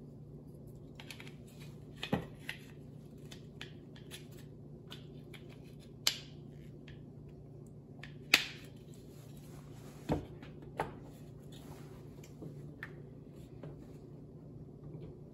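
A Toyota 4Runner's rear wiper arm being handled and worked by hand onto its pivot stud: irregular sharp clicks and knocks, about half a dozen, the loudest a little past the middle.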